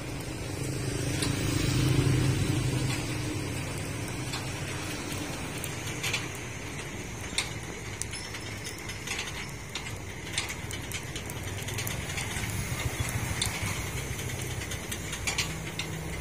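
Rotisserie spit turning a whole fish over charcoal: a steady low mechanical hum with scattered sharp clicks and ticks. The hum swells briefly about two seconds in.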